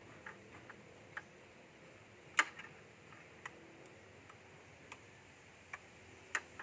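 Scattered light clicks and taps at an irregular pace, the sharpest one about two and a half seconds in.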